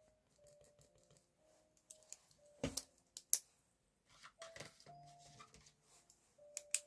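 Pens being handled at a desk: a gel pen put down and another picked out of a plastic pen case, with a few sharp clicks and taps, the loudest a little past three seconds in. A last sharp click comes near the end as the retractable pen is clicked ready for drawing.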